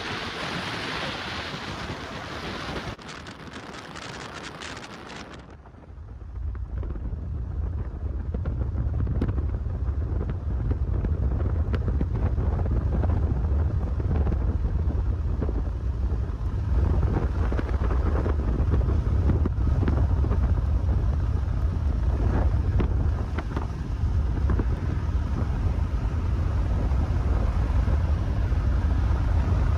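Wind rushing past a moving car, heard as a steady hiss with road noise. About six seconds in it changes to a louder, deep rumble of wind buffeting the microphone, which stays to the end.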